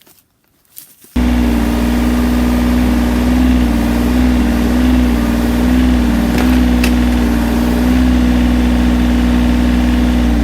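John Deere 35G compact excavator's diesel engine running steadily. It cuts in abruptly about a second in, after near silence.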